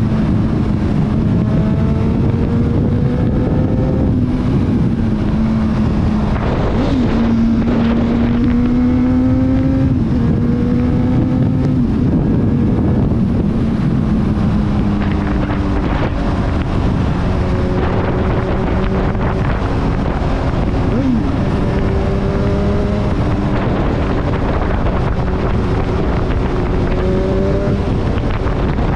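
Honda CBR1000RR's inline-four engine running at freeway speed under the rider, its pitch holding steady with slow rises and small dips, over a heavy rush of wind. The engine note settles a little lower in the second half as the bike slows.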